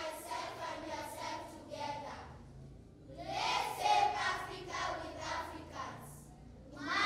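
A group of schoolchildren singing together in unison, in phrases broken by short pauses about two and a half seconds in and again near six seconds.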